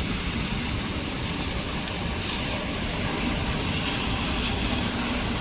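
Steady heavy rain hissing, with the low engine rumble and wet-road tyre hiss of an articulated city bus going by, swelling for a few seconds midway.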